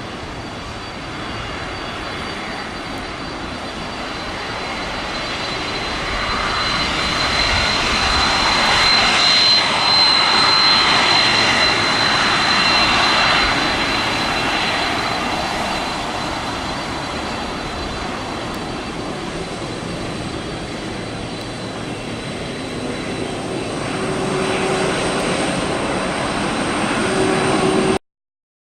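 Jet engines of a UPS Boeing 767 freighter: a steady roar with a high whine, swelling to its loudest about a third of the way in, then easing. It cuts off abruptly just before the end.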